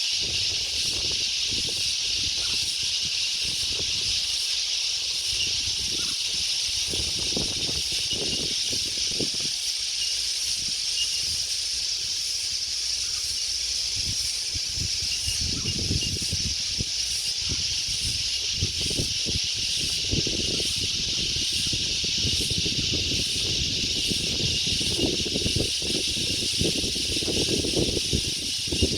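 A steady, high-pitched insect drone with a faint regular pulsing above it, under wind gusting on the microphone. The low rumbling gusts grow stronger in the second half.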